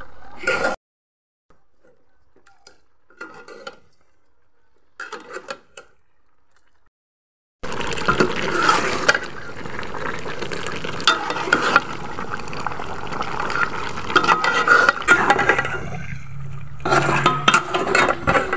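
A metal spoon stirring a thick beef curry in an aluminium pot, clinking against the pot amid wet sloshing of the sauce. After a brief burst at the start it drops almost to silence for several seconds, with a few faint clatters, then runs busy and dense with many small clinks for the rest.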